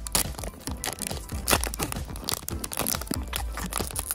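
A foil trading-card booster pack being torn open and crinkled by hand: a quick, irregular run of crackling rips and crumples, loudest about a second and a half in.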